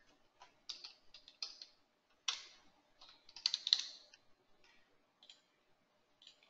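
Computer keyboard typing: quick clusters of keystrokes as a number is entered, then a few scattered faint clicks near the end.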